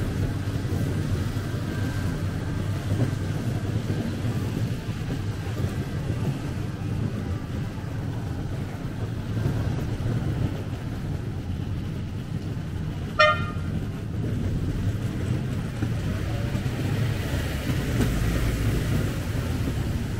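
Street ambience with a steady low rumble, broken once, about thirteen seconds in, by a single brief car-horn toot.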